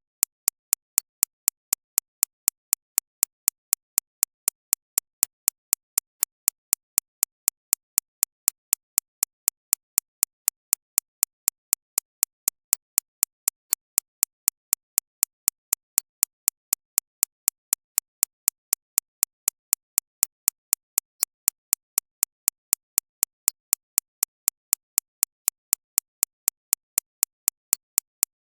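Digitally synthesized recreation of a shockwave therapy (ESWT) machine's impacts: sharp, high-pitched clicks repeating evenly about three times a second, with silence between them.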